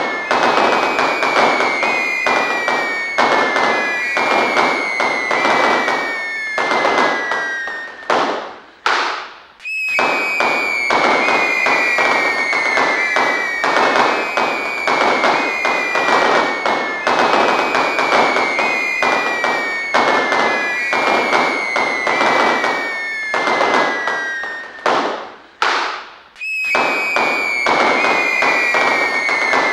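Fireworks: a dense crackle of small bursts under overlapping whistles that each fall slightly in pitch, a new one about every second. Twice the crackle dies away briefly and a whooshing sweep comes before it starts again.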